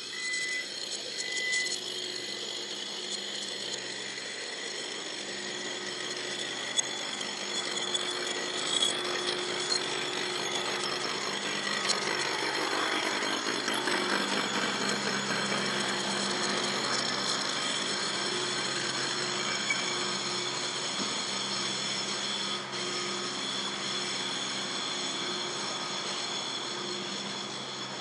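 Roadworks machinery running steadily: a constant loud noise with several high steady tones held through it.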